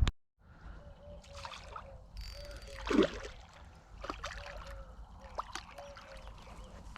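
A splash in pond water about three seconds in, with a few smaller knocks, over a faint short call that repeats steadily in the background.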